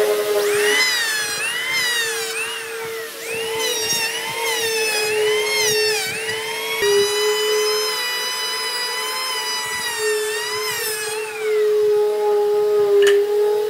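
Electric power tool motor whining, its pitch dipping and recovering again and again as it is loaded against the wood. It then holds steady for a few seconds and winds down near the end, over a steady lower hum.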